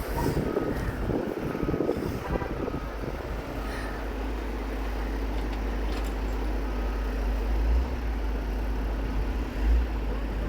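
A steady low rumble of wind buffeting the microphone in a blizzard, swelling louder twice near the end.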